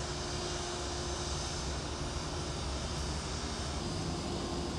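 Airbus A330-800's Rolls-Royce Trent 7000 turbofan engines running steadily with a faint steady hum as the airliner rolls along the ground.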